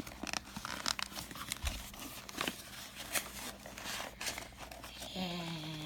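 MagicBands in their plastic container being handled: scattered light clicks and crinkly rustles of plastic, with a voice starting near the end.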